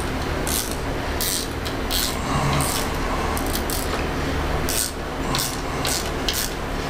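Small socket ratchet tightening bolts: short bursts of ratchet clicks on the back-swings, unevenly spaced about twice a second, over a steady low hum.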